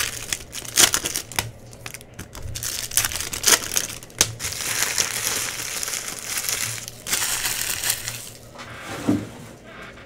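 Trading-card pack wrappers being handled, crumpled and torn open: sharp crinkling crackles, with a few seconds of steady crinkling in the middle.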